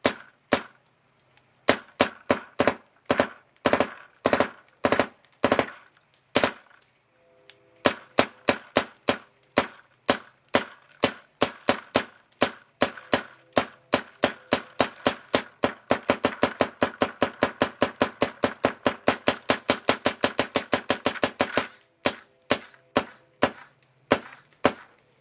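BT TM15 paintball marker firing: a run of separate semi-auto shots, a short pause, then faster strings that build into rapid fire for several seconds, dropping back to separate shots near the end.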